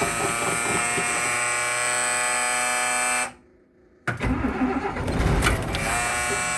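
A dash warning buzzer sounds steadily while the starter cranks the 1996 Blue Bird bus's cold diesel engine, which does not catch. Everything drops out for just under a second a little past the middle, then the cranking comes back as a pulsing low rumble under the buzzer.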